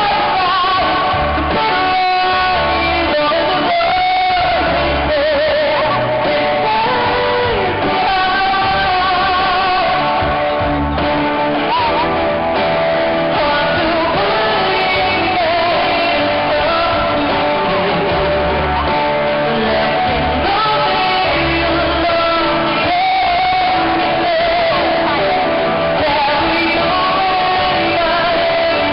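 Live pop-rock band music played loud through PA speakers, with guitar, a steady low beat and a singer's voice. Recorded close to the speakers, so it sounds harsh and dull.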